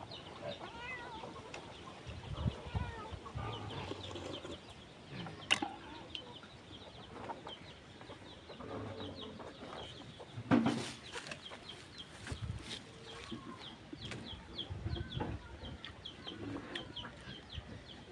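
Chickens clucking, with a string of short, high, rapidly repeated chirps, and a sharp knock about ten seconds in.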